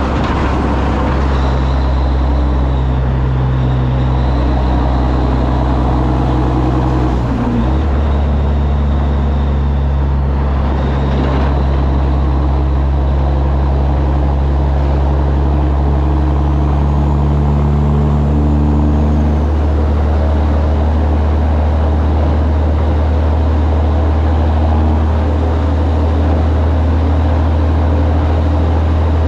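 Peterbilt 362 cabover's Caterpillar diesel engine running at a steady cruise, a loud low drone. Its upper tones step down about seven seconds in and drop away around nineteen seconds.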